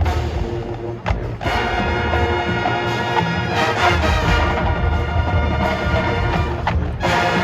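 Marching band playing, with sustained brass chords over drums and percussion. There is a short break about a second in, then the full brass comes back in.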